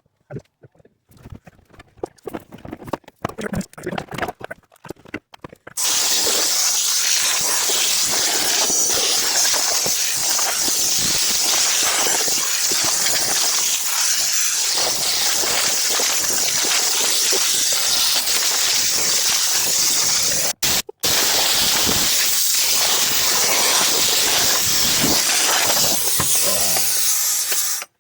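Compressed-air blow gun blasting a long continuous stream of air to blow dust and debris out of a car's floor, starting suddenly about six seconds in after some light handling clicks, and released twice for an instant partway through.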